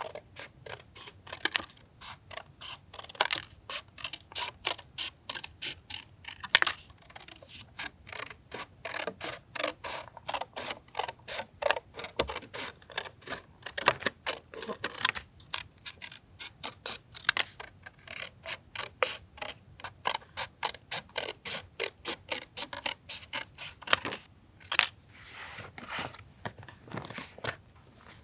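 Long run of small sharp clicks and snips, often two or three a second with short pauses, from hand tools working paper while a journal page is being decorated.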